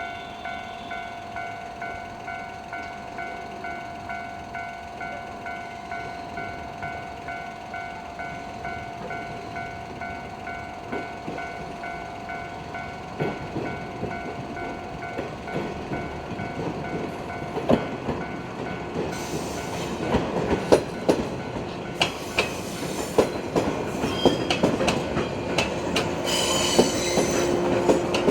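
Japanese level-crossing warning alarm ringing with an even, repeating electronic ding. About halfway through, a JR 115-series electric train arrives and runs through the crossing, its wheels clattering over the rail joints, with a wheel squeal near the end.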